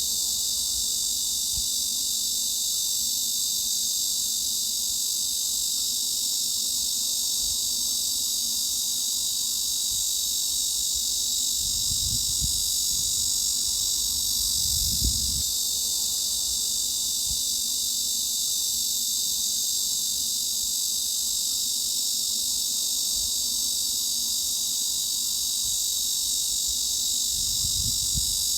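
Cicadas buzzing in a dense, steady, high-pitched drone with no pauses, with a few faint low rumbles underneath.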